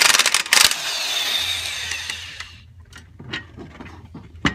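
Impact wrench hammering on the nut of a lower strut-to-knuckle bolt: a very loud, rapid rattle of blows for about a second, then running lighter and fading out about two and a half seconds in as the nut comes off. A few faint metallic clicks follow.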